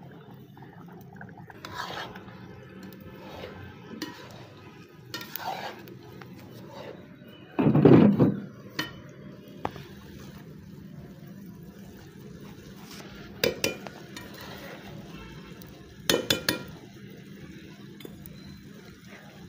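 A metal spoon scraping and clinking against a steel cooking pot as rice is stirred over a wood fire. A loud burst of noise comes about eight seconds in, and a few sharp metal clinks come later.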